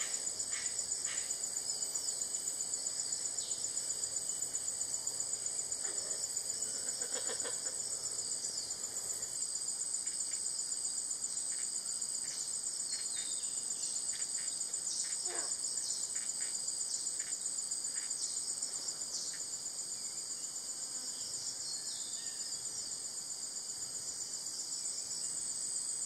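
Rainforest insect chorus: a steady, high-pitched buzzing drone with a fast pulse. Scattered short calls sound over it, one sliding down in pitch about 15 seconds in.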